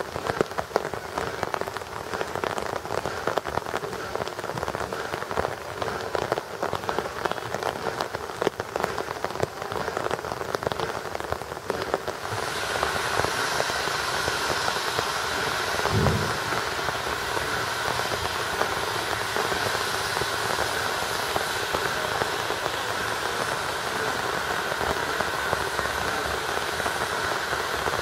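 Rain pattering close to the microphone. About twelve seconds in, it gives way to a loud, steady hiss of steam from an FS 685 steam locomotive, with one low thump a few seconds later.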